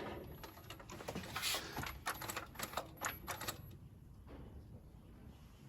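A quick, irregular run of sharp clicks lasting about three and a half seconds, then stopping.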